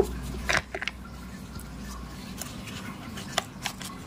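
A screwdriver turning out a Phillips screw from a plastic car mirror holder: a few sharp clicks and small scrapes of tool and screw, the loudest at the start and just after half a second in, over a low steady hum.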